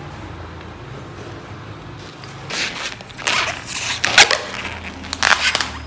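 A low steady hum, then from about halfway several short scraping, rustling noises of materials being handled.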